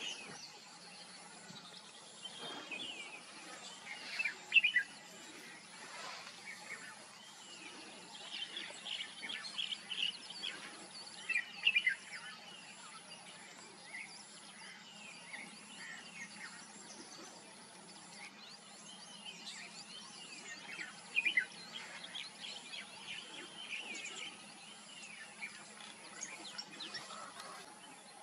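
Red-whiskered bulbul calling: short, chirpy phrases in loose groups, loudest at about 4 s, 12 s and 21 s in, over a steady background hiss.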